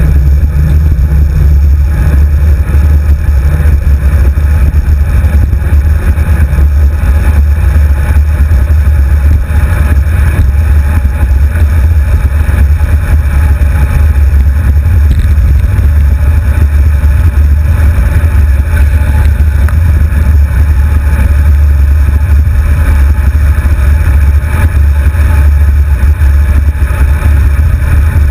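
Steady low rumble of wind buffeting and road vibration on a handlebar-mounted GoPro HD2 camera while riding a road bike, loud and unbroken throughout.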